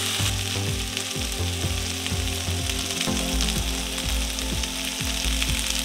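Cauliflower, potato and green peas frying in oil in a kadai, sizzling steadily with many small crackles, while a wooden spatula stirs them. A low hum runs underneath.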